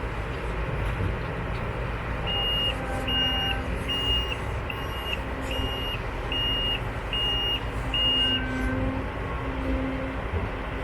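Heavy farm machinery running with a steady low rumble, while a high-pitched reversing alarm beeps eight times, a little more than once a second, through the middle.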